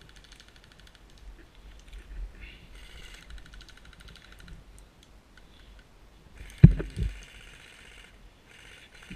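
Rattling bursts of airsoft electric rifle fire, three in all, each a fast high clatter. About two-thirds of the way through, two loud, sharp knocks close to the microphone come a third of a second apart.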